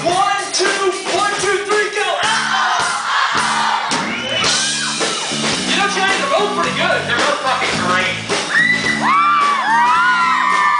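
Loud live music with singing over steady bass notes, mixed with a crowd shouting and whooping; a burst of high whoops comes near the end.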